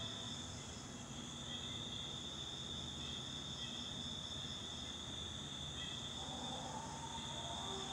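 Quiet ambient background music of long held notes, with a new chord coming in about six seconds in.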